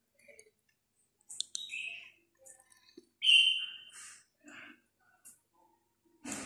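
Baby monkey making a few short high-pitched squeaks, the loudest about three seconds in, among faint small clicks.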